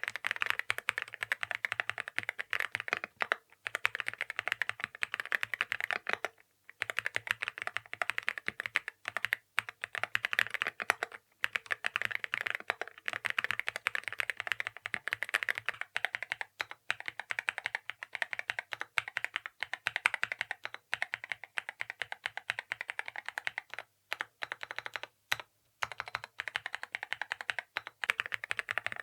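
Continuous fast typing on a Yunzii X98 mechanical keyboard with Snow linear switches and clear keycaps and case: a dense run of keystroke clacks, with a few short pauses.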